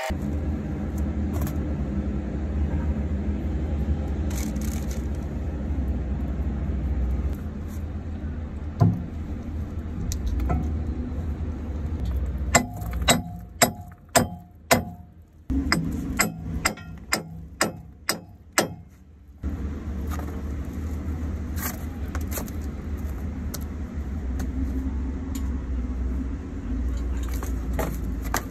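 A run of about fifteen sharp, ringing hammer blows on steel, about two to three a second, starting about twelve seconds in and lasting some six seconds. The work is on the parts of a loader's hydraulic bucket cylinder under rebuild. A steady low rumble sits underneath.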